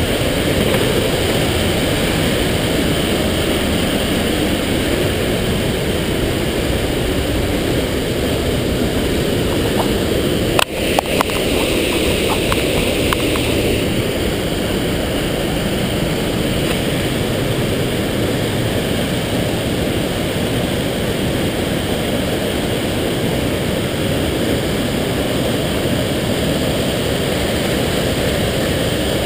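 Mountain stream rushing through a narrow rock gorge: loud, steady white water pouring over boulders. About eleven seconds in there is a brief break with a few sharp clicks.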